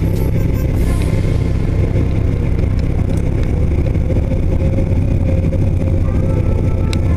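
Argo amphibious ATV's engine running steadily as it drives along a snowy trail, heard from inside its windshielded cab.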